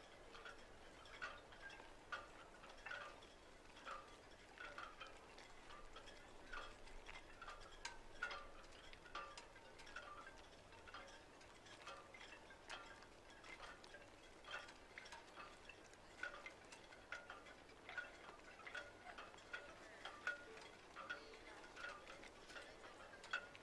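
Faint, soft chime-like notes tinkling one to two times a second, like light background music.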